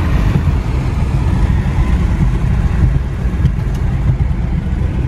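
In-cabin noise of an Infiniti Q50 cruising at about 50 mph: a steady low rumble of road and engine noise.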